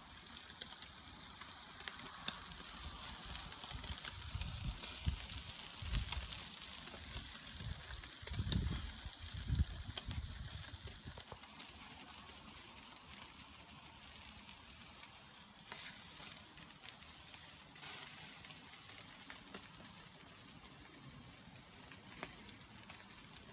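Meat sizzling over a charcoal grill: a steady hiss dotted with small crackles, with a few low thumps in the first half.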